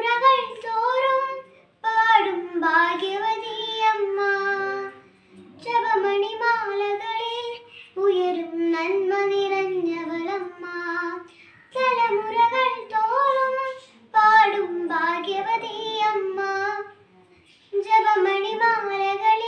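A young girl singing solo without accompaniment. She sings in phrases of two to four seconds with short breaths between them.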